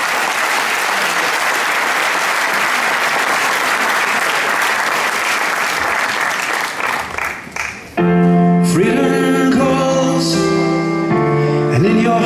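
Audience applause that dies away about seven seconds in. A second later a piano starts playing held chords, loud, to the end.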